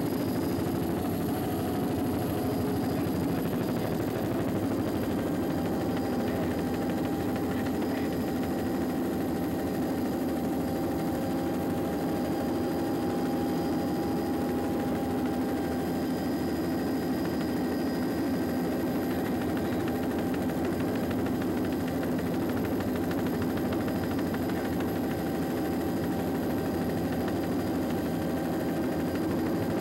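Steady engine drone of the aircraft carrying the camera, heard from inside its cabin, holding the same level and pitch throughout.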